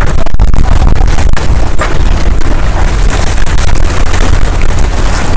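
Wind buffeting the microphone: a loud, steady rumble with no pauses.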